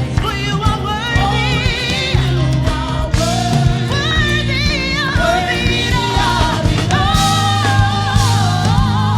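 Worship song: voices singing a melody with vibrato over a band with steady bass.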